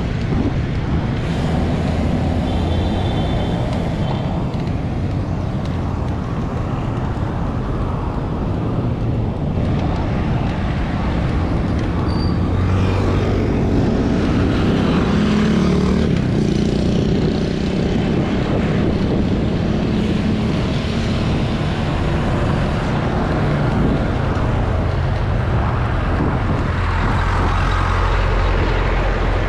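Steady road traffic noise with a continuous low rumble.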